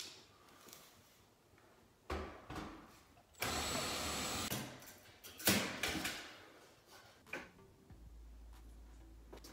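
Ryobi cordless drill/driver running in one steady burst of about a second and a half, driving a screw at a wall vent register, with handling knocks before and after.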